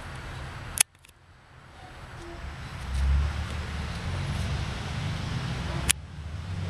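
Low outdoor background rumble, broken by two sharp clicks, one about a second in and one near the end. After the first click the sound drops almost to nothing, then the rumble builds back up.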